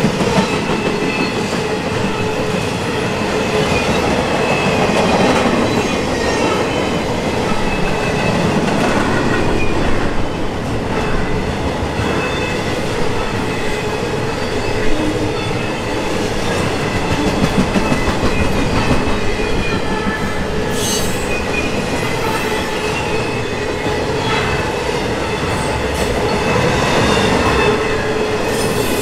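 The freight cars of an intermodal container train rolling past: steel wheels on rail with a steady high squeal and occasional clacks over the rail joints.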